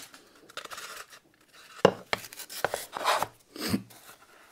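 Irregular handling noises from Styrodur foam and thin LED wires: the wires rubbing and scraping against the foam as they are pulled through holes, with a sharp click about two seconds in and a short knock near the end.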